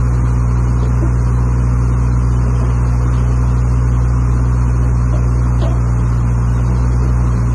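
JCB 8014CTS mini excavator's diesel engine running at a steady, constant speed.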